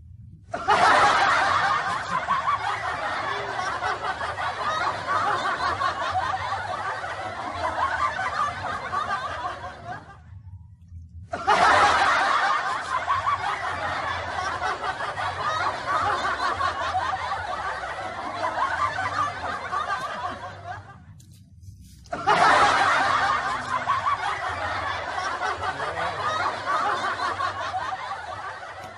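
A laughter sound effect: the same burst of loud laughing, about ten seconds long, plays three times in a row. Each burst starts suddenly, fades, and is cut off before the next.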